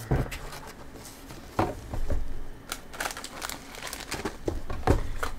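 Snack wrappers crinkling and rustling as they are handled and tossed aside, in irregular bursts with a few heavier crackles about a second and a half and five seconds in.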